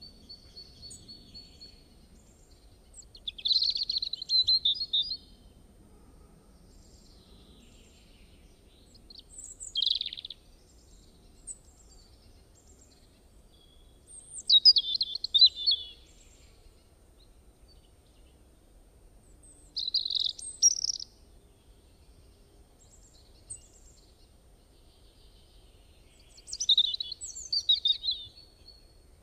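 A bird chirping in five short bursts of rapid high notes, spaced about five to six seconds apart, over a faint low background hum.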